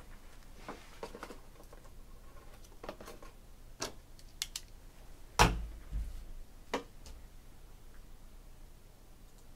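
Scattered light clicks and taps of handling at a desk, with one dull thump about five and a half seconds in and a couple of softer knocks just after.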